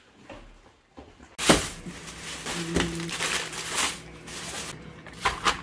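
Plastic grocery bags crinkling and rustling as produce is handled and unpacked, starting suddenly and loudest about a second and a half in, with another burst of rustling near the end.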